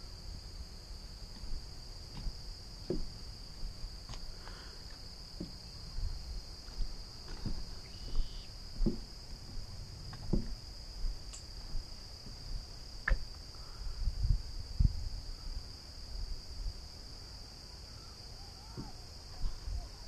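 A steady, high-pitched chorus of insects droning without a break, with irregular low thumps and knocks over it.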